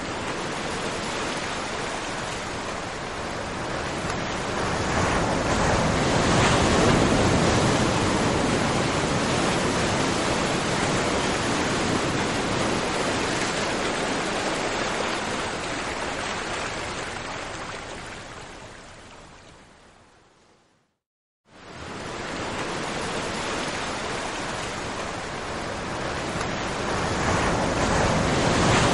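A steady rushing noise of surf. It fades out to a brief silence about twenty seconds in, then comes back.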